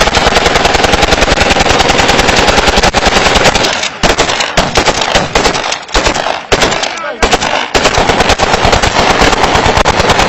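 Heavy gunfire: rapid, nearly continuous bursts of automatic fire from several guns, shots overlapping many times a second, with brief lulls about four seconds in and again around seven seconds in.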